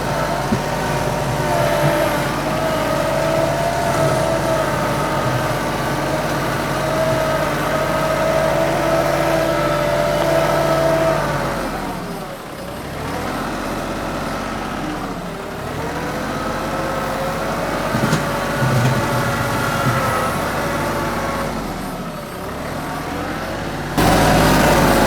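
Compact diesel tractor (TYM 2515H, hydrostatic) running under load while pushing dirt. Its engine note is steady for about ten seconds, then dips and sweeps back up about halfway through and again near the end, as the load or throttle changes.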